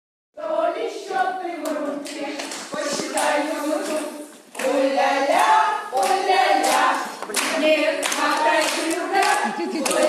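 A group of women singing together in chorus, with sharp claps along the way. The singing drops away briefly about four seconds in, then picks up again.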